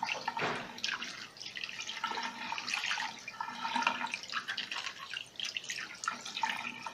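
Water running and splashing over a steam-iron part, rinsing off the vinegar used to loosen the limescale.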